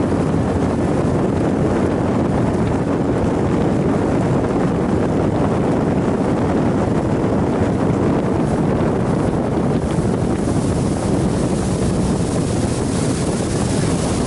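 A 90 hp outboard motor running steadily at speed on a small open boat, with wind buffeting the microphone and water rushing past the hull. From about ten seconds in, the hiss of wind and spray grows louder.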